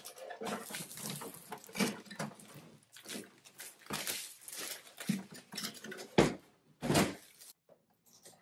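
Plastic shrink wrap crinkling and tearing as it is pulled off a new printer by hand, with two heavier thumps about six and seven seconds in.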